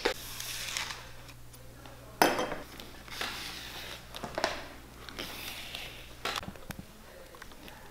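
Linen thread being pulled out and drawn through the fingers: a few short rasping swishes, one starting sharply about two seconds in, with small clicks between. A low steady hum underneath stops about six and a half seconds in.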